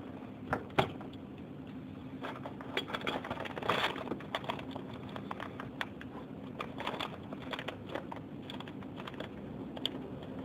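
Small metallic clicks and taps of a ring spanner and fingers working a bolt on the underside of a Honda PCX125 scooter engine, with two sharp clinks about half a second in and a dense cluster of rattling clicks near four seconds. A steady low hum runs underneath.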